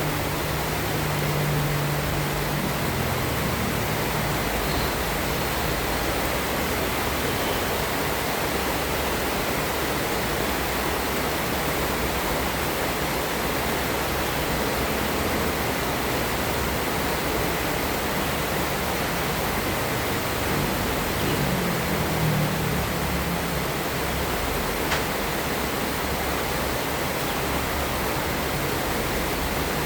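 Heavy rain falling in a steady, dense hiss, with a brief low rumble about two-thirds of the way through and a single sharp click shortly after.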